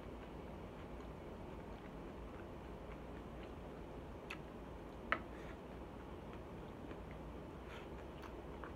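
Scattered light clicks of chopsticks against a plastic takeout tray, the sharpest about five seconds in, over a low steady background hum.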